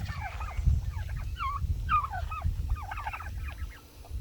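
Flock of young turkeys calling: many short, down-slurred peeps and yelps, overlapping throughout, over a low rumble.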